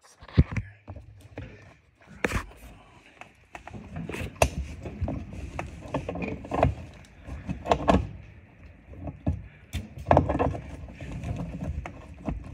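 Irregular clicks, knocks and rattles of hydraulic hose quick-couplers being handled and pushed onto a tractor's front-loader connections, with metal collars and fittings being worked by hand.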